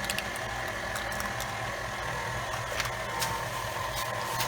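Electric stand mixer running steadily, its beater fitted with a rubber scraper blade mixing pound cake batter, with a few faint ticks.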